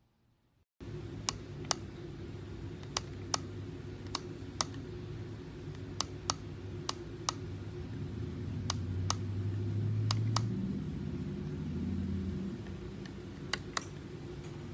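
A steady low hum that starts suddenly, with sharp clicks over it, mostly in pairs about half a second apart.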